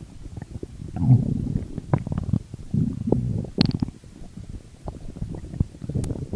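Stomach growling and gurgling in uneven low bursts, loudest from about a second in to about four seconds in, with a brief higher squeak in the middle. Quieter gurgles follow.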